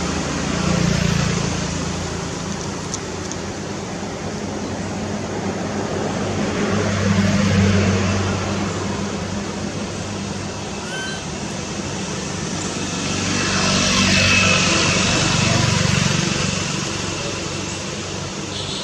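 Road traffic passing: vehicles go by one after another, each swelling and fading, with a low engine hum under a hiss of tyres and wind.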